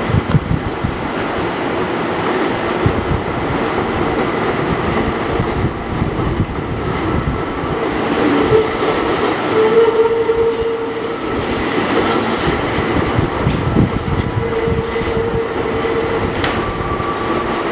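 New York City subway train running around a tight elevated curve, a continuous rolling rumble and clatter of the wheels on the rails. From about halfway through, the wheels squeal against the curved rail in long held tones, twice.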